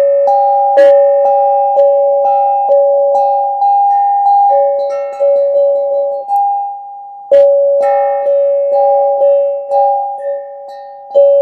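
A bell-like chime in two notes, struck over and over about twice a second, each stroke ringing on into the next. It pauses briefly a little past the middle, then starts again with a strong stroke.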